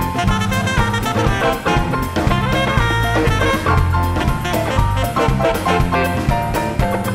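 Background music: an upbeat swing-jazz tune with drum kit and brass, steady beat throughout.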